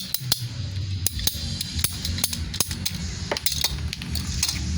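Irregular sharp clicks and taps, several a second, over a low steady hum.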